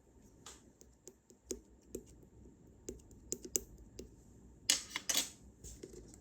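Aloe slime being pressed and poked by hand, giving a string of small sharp clicks and pops, then two louder crackling bursts about five seconds in.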